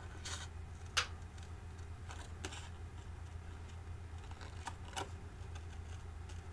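Small scissors snipping through cardstock while fussy cutting around a stamped image: a few scattered short snips, the loudest about a second in, over a steady low hum.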